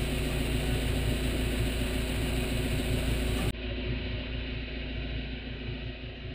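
Motorboat engine running steadily with wind and water hiss; about halfway through the high hiss cuts off suddenly, leaving a duller, slightly quieter engine hum.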